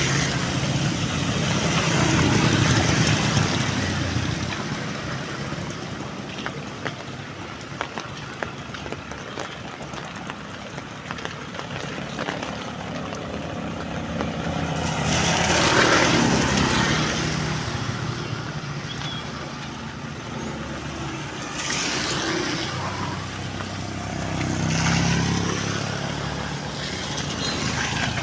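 Heavy rain falling steadily, with several vehicles passing on the wet road, each swelling up and fading away: one near the start, a louder one about halfway through, and two more near the end.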